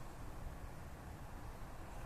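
Faint, steady outdoor ambience: a low rumble with an even hiss over it, with no distinct events.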